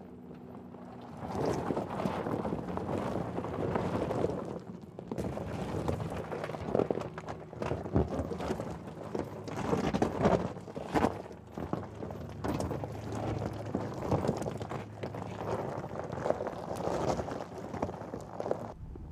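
Tyres of an electric Mercedes G-Class crunching slowly over gravel and rock off-road, with irregular clicks and knocks from stones and the suspension. A low steady hum runs underneath.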